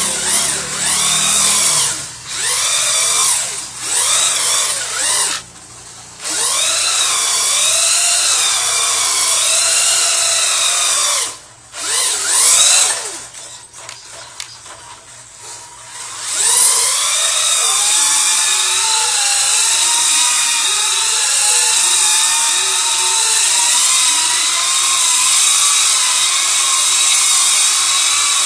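Duratrax Evader RC truck's electric motor and gearing whining, the pitch rising and falling as it spins donuts on wet pavement. It breaks off a few times in the first half, then runs on as one continuous wavering whine from a little past halfway.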